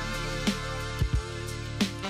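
Instrumental music with held chords and a few drum hits.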